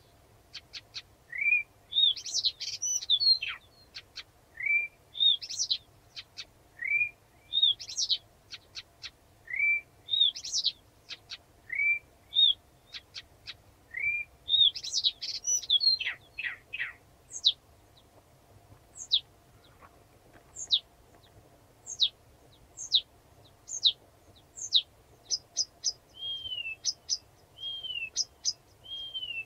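Blyth's reed warbler singing a slow, measured song, each phrase repeated several times before it moves on. First a rising note topped by a quick bright flourish comes about every two and a half seconds. Then comes a run of sharp down-slurred whistles about once a second, and arched whistled notes near the end.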